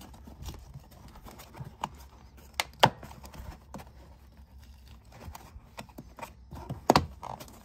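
Plastic interior trim panel in a Dodge Journey's cargo area being pulled up by hand, its clips and tabs working loose: scattered clicks, taps and rustles, with sharper knocks about three seconds in and again near the end.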